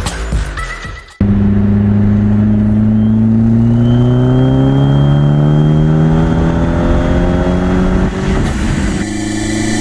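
Fiat 500 Turbo's engine pulling hard at wide-open throttle, its pitch climbing steadily for several seconds, with a thin high turbo whistle rising over it. Near the end the pitch drops at a gear change and then starts climbing again. A short bit of music comes before it, cut off abruptly as the engine comes in.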